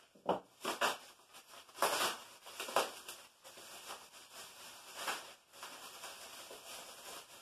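Plastic bubble wrap being pulled apart and unwrapped by hand: irregular crinkling and rustling, with louder bursts in the first three seconds and softer rustling after.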